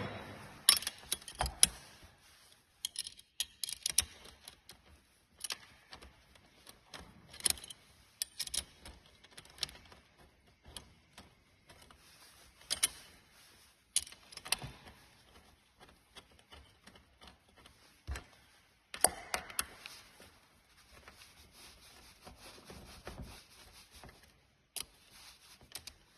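Irregular small clicks, taps and light metallic rattles of hand tools and sim-racing pedal hardware being handled and fitted, with a few louder knocks scattered through.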